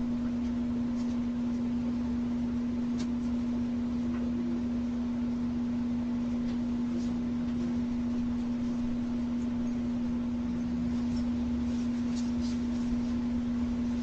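A steady humming tone at one pitch that never changes, over a faint background hiss, with a few soft clicks.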